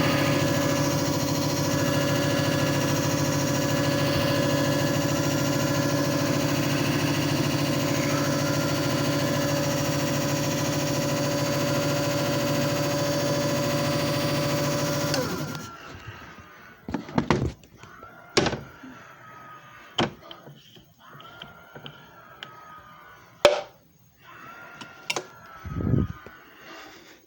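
JFJ Easy Pro disc repair machine running with a steady motor hum, which shuts off about fifteen seconds in. Several sharp knocks and thunks follow.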